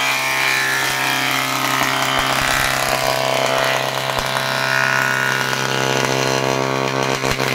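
Electric surface planer (jointer) running, its motor giving a steady hum under a dense hiss from the cutter block as a wooden board is pushed over it by hand, with a few light knocks.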